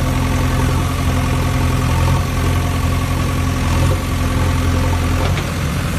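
A steady idling engine hum, a low drone that holds constant without revving.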